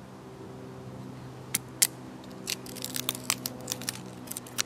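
Two thin split pallet-wood sticks clicked together like chopsticks: a run of sharp, irregular wooden clicks starting about a second and a half in.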